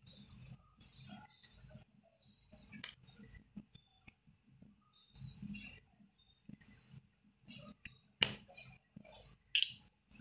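Thread drawn through waistcoat fabric by hand, in short scratchy swishes about once a second as each stitch of a button is pulled tight. A few sharp clicks come between them, the loudest about eight seconds in.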